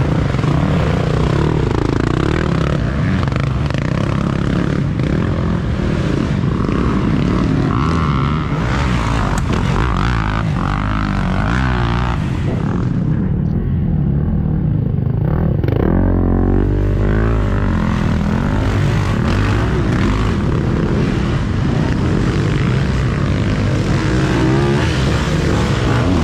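Several off-road dirt bike engines revving hard, one close behind another, their pitch rising and falling with the throttle.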